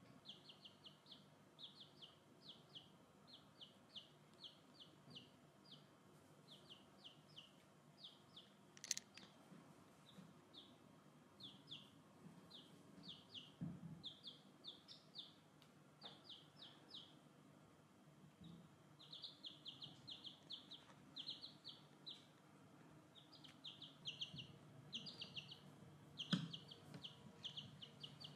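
Baby chicks peeping: runs of short, high peeps, each sliding down in pitch, several a second, going on with brief gaps throughout. Two sharp clicks, about nine seconds in and again near the end, stand out above the peeping.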